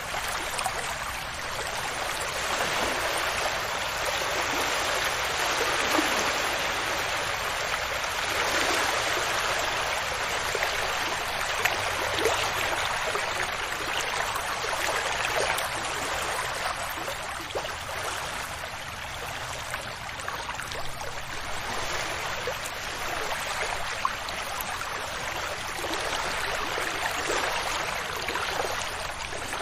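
Waves washing onto a beach: a continuous rushing wash of surf that swells and eases gently every few seconds.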